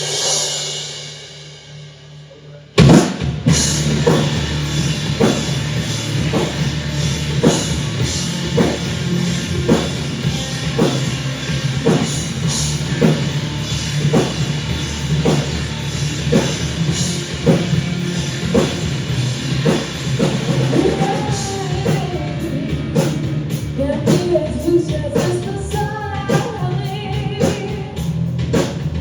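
A live rock band starts a song. A cymbal rings and fades, and after a short pause the full band comes in at once, with drum kit and bass on a steady beat. A singer's voice joins about twenty seconds in.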